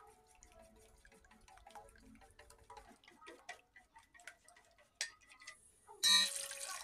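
Wooden chopsticks clicking rapidly and unevenly against a stainless steel bowl as eggs are beaten. About six seconds in, liquid starts pouring into the bowl with a louder splashing rush.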